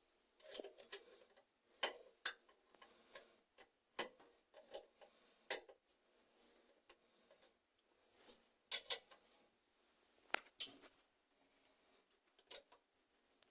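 Sharp metallic clicks and taps at irregular intervals, roughly one a second, with faint scraping between them, as a bathroom mixer tap is unscrewed from its fitting.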